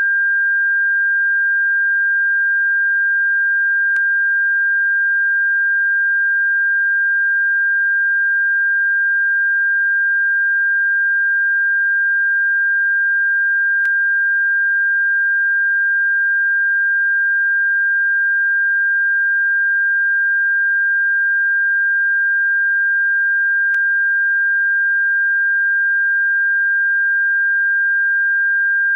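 Steady electronic sine tone at a single high pitch, held without change, played as a bird-repellent sound. Three faint clicks break it, about ten seconds apart.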